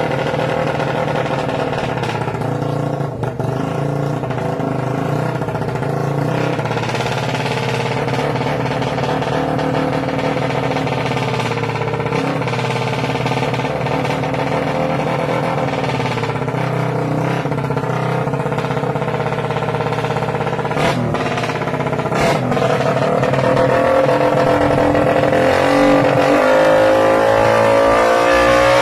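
Suzuki Raider 150 motorcycle with an aftermarket exhaust pipe running at a steady engine speed, then revving up gradually over the last few seconds, with a couple of short clicks about two-thirds of the way through.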